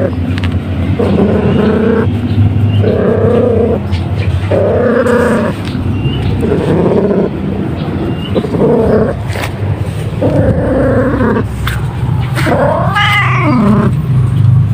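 Domestic cat purring very loudly, a rough purr that swells in a pulse about every second and a half as it breathes, from having its head scratched. About thirteen seconds in, it gives one call that rises and falls in pitch.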